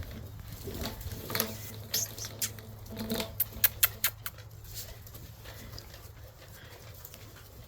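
Shiba Inu puppies moving about and playing: a run of quick patters and sharp clicks, thickest between about three and four seconds in, then quieter.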